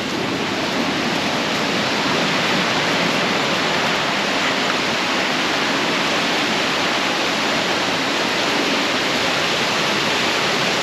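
River water rushing, a steady loud rush with no let-up.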